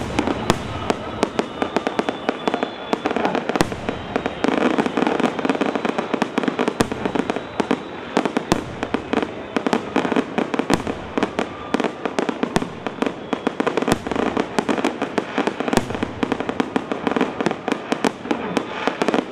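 Fireworks display: aerial shells bursting with a dense, continuous crackle of many sharp reports in quick succession.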